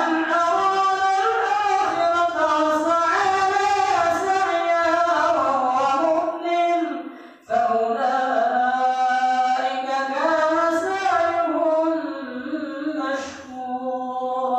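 An imam's melodic Qur'an recitation while leading prayer over a microphone: one long ornamented phrase with sliding pitch, a short breath about seven seconds in, then a second phrase ending on a held note.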